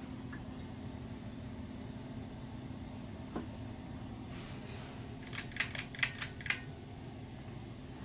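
Litex Whitestar ceiling fan running with a steady low motor hum. A little past the middle there is a quick run of about six sharp clicks.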